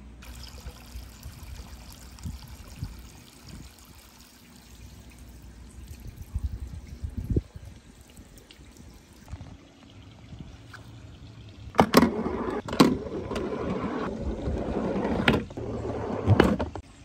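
Water trickling from a hose into a clear plastic tank and spilling over its edge. About two-thirds of the way in, a much louder spell of pouring, splashing water begins, broken by several sharp knocks, and it stops just before the end.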